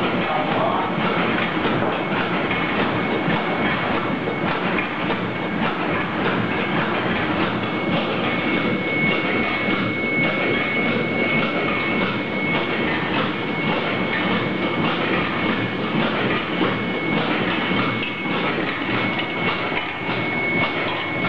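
LTRG-160 high-speed soft tube filling and sealing machine running: a steady, dense mechanical clatter from its rotary turntable and tube holders. A thin high whine runs over it and grows stronger from about eight seconds in.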